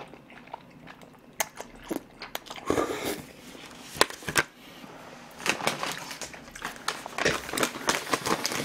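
A person eating thick Chinese-style jjajangmyeon noodles: slurping a mouthful in, then chewing with many small wet smacks and clicks of the mouth, the smacking growing busier in the second half.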